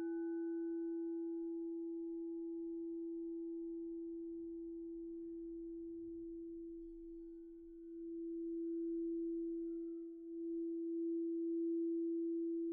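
8-inch quartz crystal singing bowl tuned to E ringing with one long, steady, pure tone, with faint higher overtones that fade over the first few seconds. The tone swells again in the second half.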